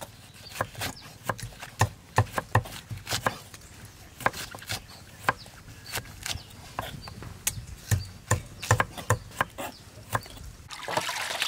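Steel cleaver shredding cabbage on a thick wooden chopping board: a run of irregular knocks, a few a second, as the blade cuts through and strikes the wood. Near the end the knocks give way to a rustling noise.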